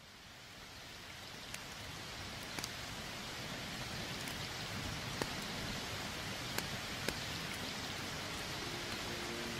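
Steady rain falling, fading in gradually, with a few scattered sharp drip ticks. A faint low tone enters near the end.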